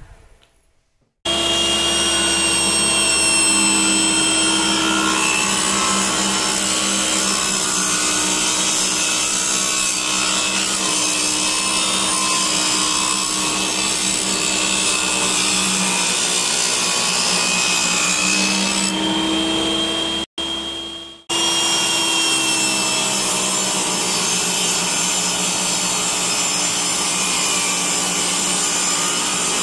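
Makita MLT100 table saw running and ripping pine boards: a steady motor whine over the rasp of the blade in the wood. It starts abruptly about a second in and drops out briefly about twenty seconds in.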